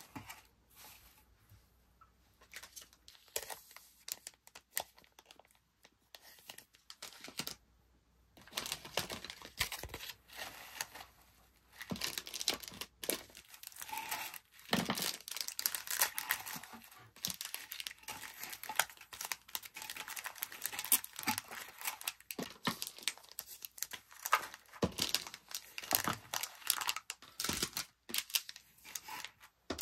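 Rustling and crinkling of packing materials being handled: shredded paper filler, tissue paper and plastic packets. The scratchy sounds come irregularly, sparse and soft at first and busier from about twelve seconds in.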